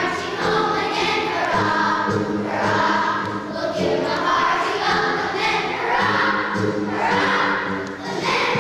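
Children's choir singing a slow song in unison.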